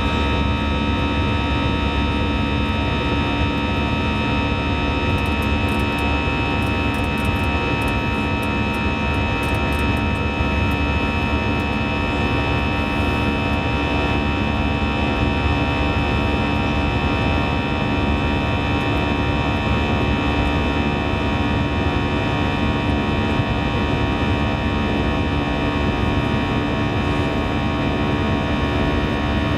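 Airbus A321's CFM56-5B turbofan engines at climb power, heard inside the cabin beside the left engine: a steady drone with many fixed tones stacked on it, the fan's buzzsaw sound.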